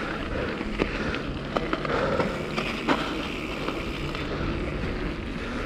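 Mountain bike being ridden: steady rolling tyre and wind noise, with a few sharp clicks and rattles from the bike.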